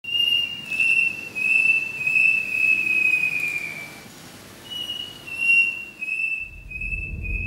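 A high whistle-like melody in two descending phrases, each a run of held notes that step down in pitch. A low rumble comes in near the end.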